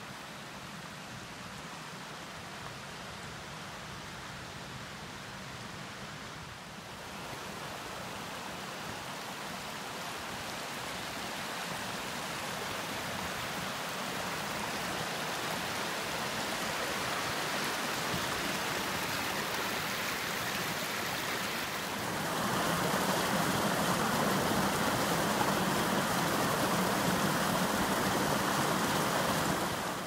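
Mountain brook rushing steadily. It grows gradually louder, then steps up suddenly about three-quarters of the way through.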